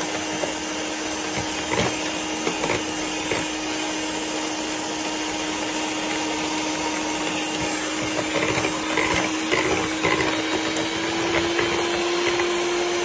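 Electric hand mixer beating eggs and sugar into a mousse-like batter: a steady motor whine over a dense whirring, the pitch stepping up slightly about eleven seconds in.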